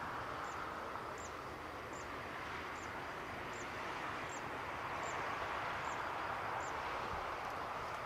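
Airbus A350-941's Rolls-Royce Trent XWB turbofans running at taxi power: a steady jet rush that swells slightly as the aircraft passes. Short faint high chirps repeat about every three-quarters of a second throughout.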